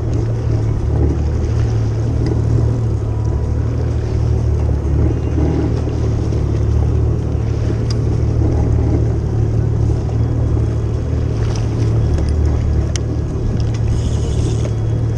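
Jet ski engine idling with a steady low hum, with water and wind noise over it.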